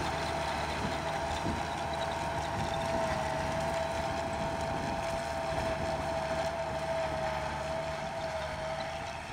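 Kubota farm tractor's diesel engine running under load while its rear-mounted rotary tiller churns the soil, with a steady high whine over the engine. The sound eases slightly near the end as the tractor moves away.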